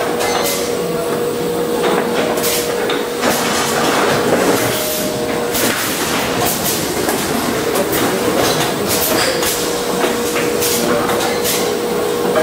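Automatic cardboard case-packing machine running, its moving parts clicking and knocking irregularly as it folds case blanks. Under the clicks runs a steady hum, which drops out for a couple of seconds midway.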